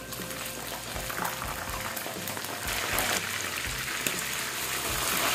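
Fish steaks frying in hot cooking oil in a pan: a steady bubbling sizzle that grows louder about halfway through.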